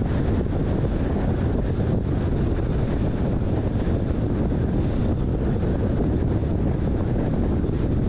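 Steady wind and road noise of a vehicle driving at highway speed, with wind buffeting the microphone.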